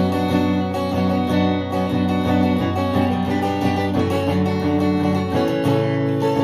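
Acoustic guitar strumming chords in an instrumental passage of a song, with no singing; the chord changes about four seconds in.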